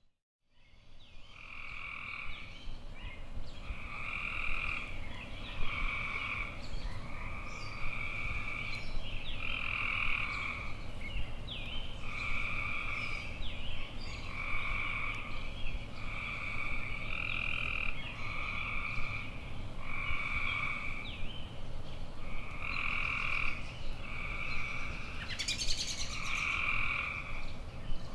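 Frogs calling in a steady chorus: long even croaking notes repeat about every one and a half to two seconds, with short chirps in between. A brief buzzy rattle sounds near the end.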